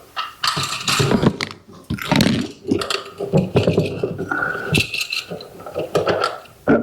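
Screwdriver tightening the screws that draw in a plastic electrical box's mounting tabs: irregular clicking, ratcheting and scraping as the screws turn.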